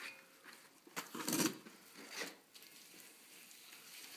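A few short, faint scraping and rustling sounds of a wet ash-and-water paste being worked around a bread oven's door to seal it, the loudest about a second in and another about two seconds in.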